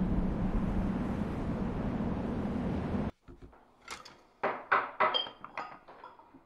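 Steady rushing noise with a low hum, which cuts off abruptly about three seconds in. It is followed by a run of sharp wooden knocks and rattles of a door being opened.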